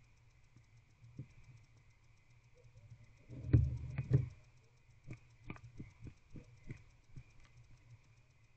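Barn owl tearing at a mouse on the nest box floor: a brief bout of scuffling and knocks, followed by a run of small sharp clicks and ticks.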